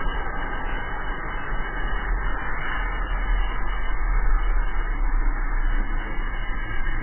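Wind buffeting the microphone of a camera riding on a moving drift trike, a steady deep rumble with a hiss of wheels rolling on asphalt as it coasts downhill.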